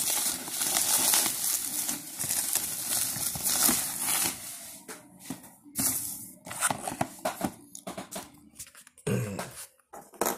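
Bubble wrap being pulled open and crumpled by hand, a dense crinkling rustle for the first few seconds. It then gives way to scattered clicks, scrapes and light knocks as the cardboard box is handled.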